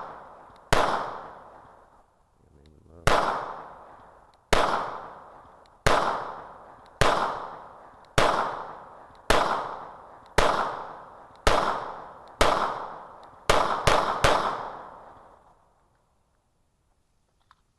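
Beretta 92FS-pattern 9mm pistol firing about thirteen shots, first at a steady pace about a second apart, then three in quick succession. Each report leaves a long echoing tail. The firing stops about two seconds before the end.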